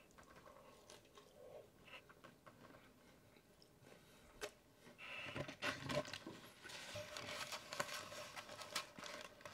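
A person chewing a mouthful of loaded nachos close to the microphone, with soft, wet crunching of tortilla chips. It grows louder and busier from about five seconds in, with rustling and crackling.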